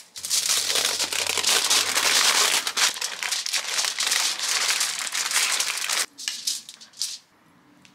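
Aluminium foil crinkling as a log of embutido meat mixture is rolled up in it, running for about six seconds and then stopping, with a couple of short crinkles after.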